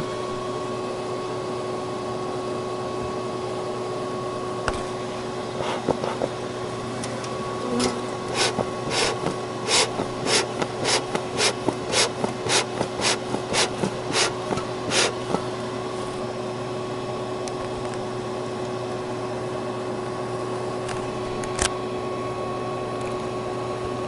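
Steady machine hum with a held whine throughout. In the middle comes a run of about eighteen short, sharp scraping or clicking strokes, about two and a half a second, with a single click near the end.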